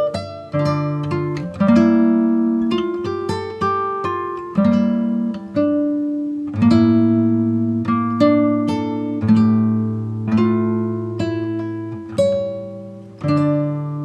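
Background music: an acoustic guitar picking out a slow tune, each plucked note ringing and then fading.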